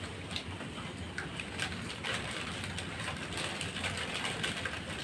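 Crinkly plastic chip packets being handled and torn open, with irregular crackles and rustles over a faint low hum.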